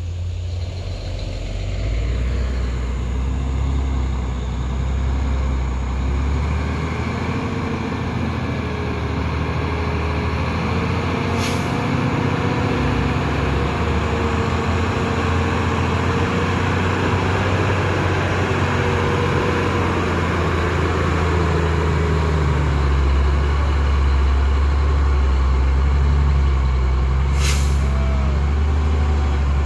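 Heavily loaded diesel cargo truck grinding slowly up a steep grade at low revs, its engine running steadily and growing louder as it comes near. Two short air hisses come about 11 and 27 seconds in.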